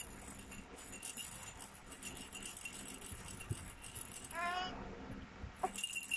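Plastic ball rattle shaken in a baby's hand, a faint irregular rattling, with one short baby vocal sound about four and a half seconds in.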